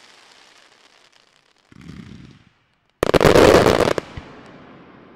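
Aerial fireworks shells at a large display: a fading crackle, then a muffled low rumble about two seconds in, then a loud, dense burst of shell breaks lasting about a second, which dies away into a hiss.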